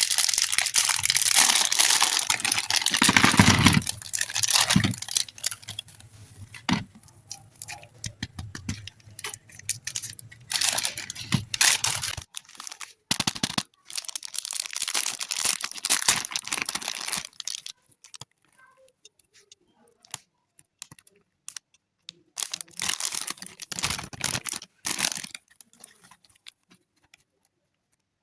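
Packaging being torn open and crinkled by hand, in long noisy bursts with scattered clicks and short pauses between.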